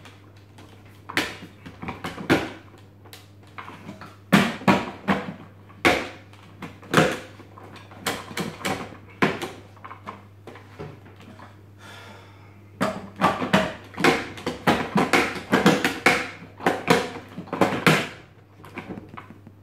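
Plastic food processor bowl being twisted and jerked against its base, a run of irregular clunks and rattles in clusters with a lull about halfway, as the stuck bowl refuses to come free.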